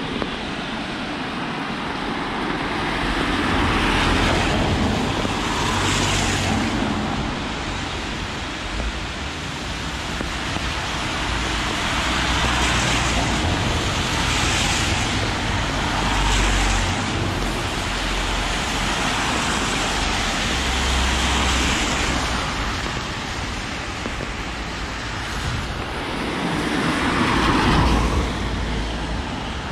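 Cars passing on a rain-soaked road: a steady hiss of tyres on wet tarmac, rising and fading in swells every few seconds as each vehicle goes by, with a low engine rumble and the loudest pass near the end.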